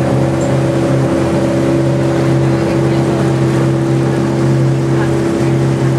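A passenger boat's engine running steadily under way, a constant low hum over a haze of water and wind noise.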